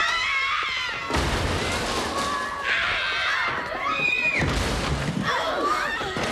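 Women shrieking and crying out as they grapple in a fight, with two heavy thuds of bodies hitting something: one about a second in, another past the middle.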